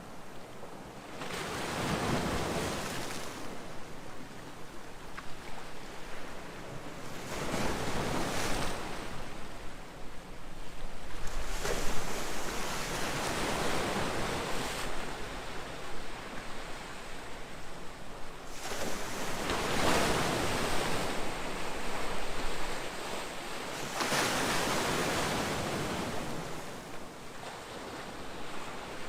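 Ocean surf: waves breaking in slow surges roughly every five seconds, each rising and falling away into a steady wash of water.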